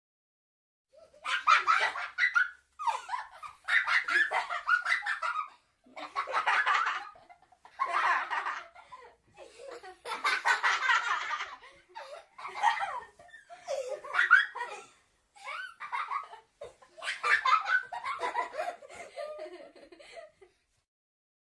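A young child laughing in repeated fits, about ten bursts of rapid, breathy giggling with short pauses between them.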